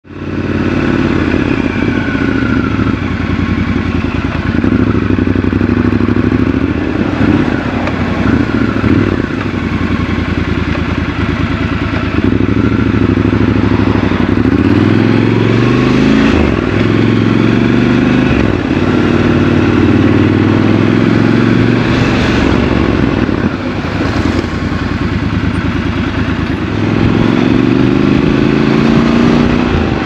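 Triumph Scrambler 1200 XC's 1200 cc parallel-twin engine running as the motorcycle rides along, its pitch rising as it accelerates, most clearly about halfway through and again near the end.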